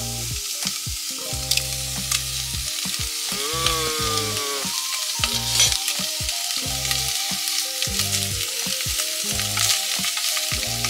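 Bacon pieces frying in a dry stainless steel pot on an induction hob: a steady sizzle, with sharp crackles of spitting fat.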